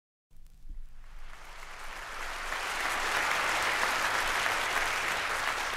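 Audience applauding at the start of a live concert recording, fading in and building to a steady level over the first few seconds.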